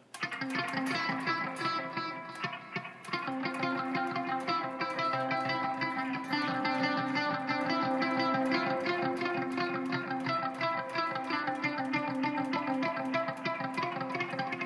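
Gibson Flying V B-2 electric guitar played on the bridge pickup through delay, reverb and flanger pedals: a steady run of rapid, evenly picked notes over a held lower note.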